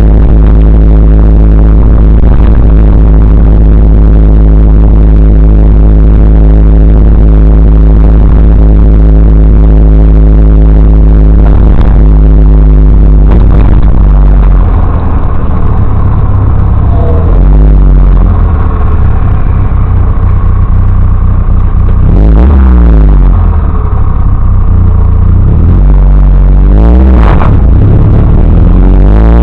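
Triumph TR3A's four-cylinder engine and exhaust on the move, picked up by a dash cam and loud enough to overload it, so the sound is distorted. The engine holds a steady note for about the first half, then revs rise and fall several times, as with gear changes.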